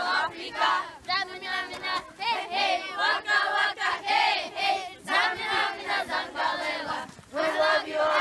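A group of children's voices chanting together in loud phrases broken about once a second.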